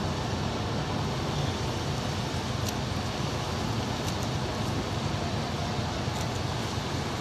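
Steady low machinery drone with a hiss from the Pelni passenger ship KM Gunung Dempo's running machinery, with a few faint ticks.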